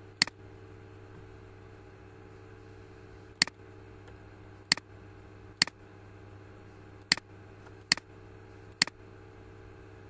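Seven sharp computer mouse clicks at uneven intervals, over a steady low hum in the background.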